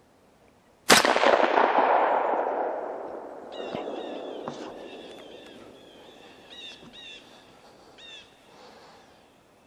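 A single .223 AR-15 rifle shot fired at a coyote about a second in, its echo rolling off the surrounding woods for about three seconds. It is followed by a run of short, high, repeated cries that fade out.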